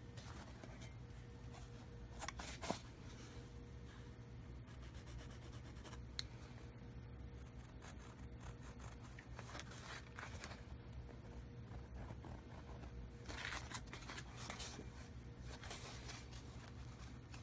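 Faint scratching and rubbing of a pencil marking the back of a canvas, with the canvas rustling as it is handled and a few small clicks, over a steady low hum.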